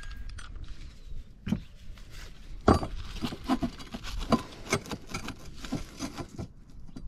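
Scattered light clinks and knocks of a metal solar tile hook being handled and set against concrete roof tiles, the loudest about two and a half seconds in.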